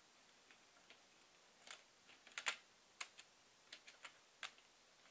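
Faint, irregular small plastic clicks and taps as N gauge model wagons and their couplings are pushed together by hand on the track. The loudest comes about two and a half seconds in.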